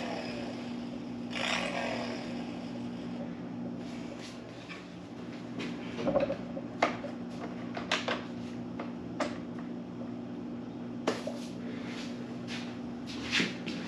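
Scattered light clicks and knocks of parts being handled and fitted while a motorcycle's windshield and front fairing go back on, over a steady low hum.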